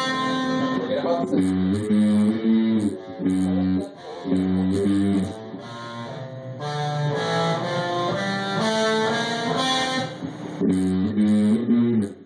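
A rock band's electric guitar and bass guitar playing a rhythmic riff of repeated chords. The playing breaks off briefly about four seconds in and cuts off just before the end.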